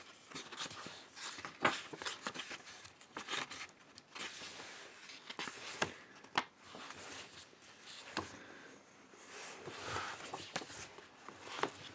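Pages of a hardcover book being leafed through: a run of irregular paper rustles and swishes, with a few sharper page snaps.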